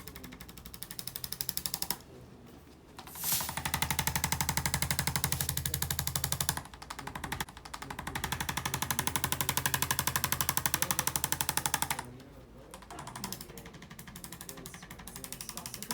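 Handheld electric percussion device hammering rapidly on a patient's back, in runs of a few seconds with short breaks; the pulsing is softer over the last few seconds.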